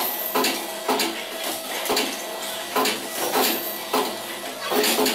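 Resistance spot welder welding the crossing wires of a wire mesh cage: a run of sharp metallic clacks, roughly two a second, each with a short ring.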